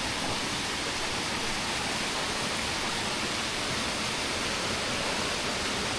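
Small jungle river flowing with a steady rush of water.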